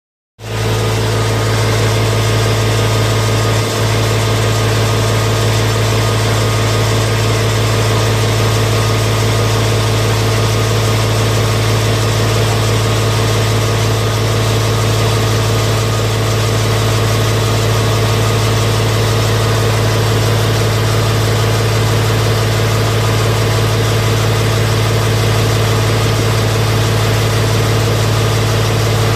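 Engine of a high-pressure drain jetting machine running steadily, a constant low drone with an even hiss over it, as it drives water into a blocked drain.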